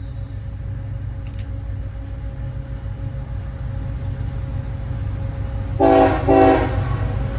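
A CSX ET44AH locomotive's K5HL five-chime air horn sounding two short blasts about six seconds in, over the steady low rumble of the approaching diesel freight train, which slowly grows louder.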